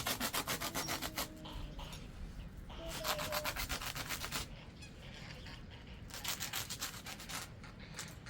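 Rapid rhythmic rubbing or scraping strokes, about nine a second, coming in three bursts of a little over a second each, about three seconds apart.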